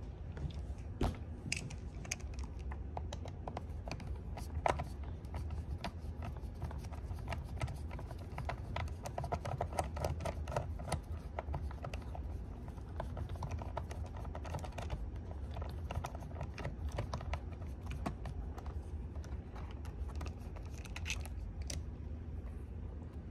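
Screwdriver working out the small screws on either side of a smart toilet's water heater: many small irregular clicks and scrapes of metal on plastic, over a low steady hum.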